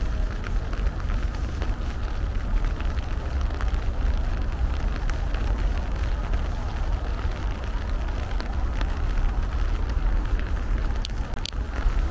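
Steady rain falling, with scattered drops ticking, over a constant low rumble. Two sharper ticks come near the end.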